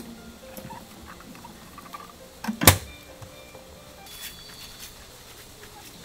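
Handling sounds as a mesh bag of sliced raw fish is lifted out of the drum of a small spin dryer, with one sharp thump about two and a half seconds in.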